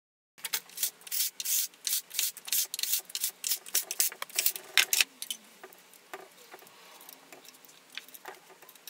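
Hex key working the cap head screws that hold a steel stiffening plate to a mill column: a quick run of short metallic scrapes and clicks starting about half a second in, thick for the first few seconds, then thinning to fainter scattered ticks.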